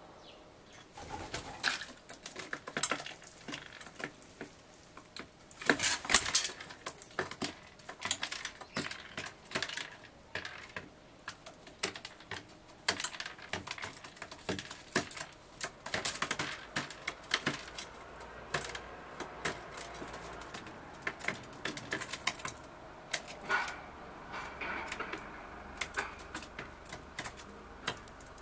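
Oriental turtle dove at a wooden bird table: wingbeats as it flaps, and many quick, sharp taps of its beak pecking seed off the boards.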